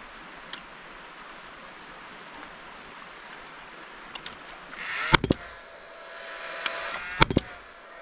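Paslode cordless framing nailer firing twice, about two seconds apart, each shot a sharp double crack, driving nails through a wooden block into a 4x4 post. Its fan whirs around the shots.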